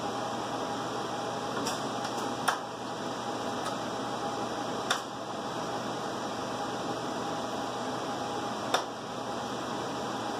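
Steady fan-like hum of room equipment with a faint steady tone, broken by a few sharp clicks, three of them clear and a few seconds apart, as a hand screwdriver works screws into the metal case of a UPS battery module.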